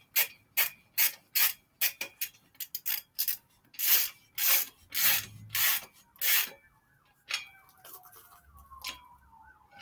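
A ratchet wrench worked back and forth in quick repeated strokes, about two a second, tightening a bolt on a bicycle. A distant siren starts to wail faintly near the end.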